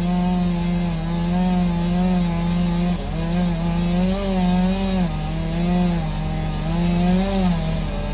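Chainsaw running at high revs while cutting into a large tree trunk, its note dropping as the chain bogs under load and climbing back several times.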